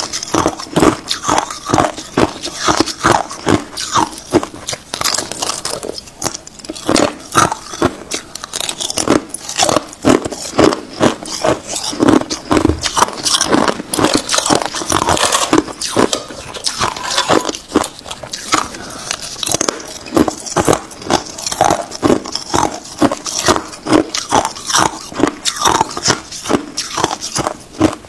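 Hard, thin sheets of clear ice being bitten and crunched: a dense, continuous run of crisp cracks and crunches.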